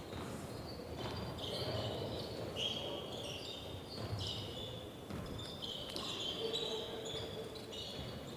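Basketball sneakers squeaking on a hardwood court in quick, repeated short chirps, with a basketball bouncing and low gym background noise.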